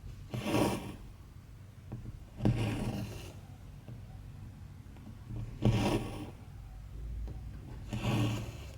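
Embroidery thread being pulled through cross stitch fabric: four rasping swishes, one every two to three seconds, over a faint low hum.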